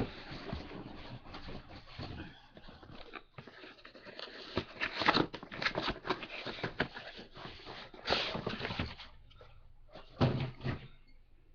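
Packaging being handled during an unboxing: rustling paper and cardboard with a series of knocks and bumps, the loudest around the middle and about two seconds before the end, dying away near the end.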